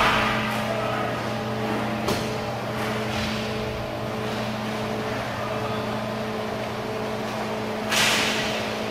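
Inline roller hockey play heard from behind the rink's plexiglass: skate wheels, sticks and puck clatter over a steady hum. There is a sharp knock about two seconds in and a louder crash near the end.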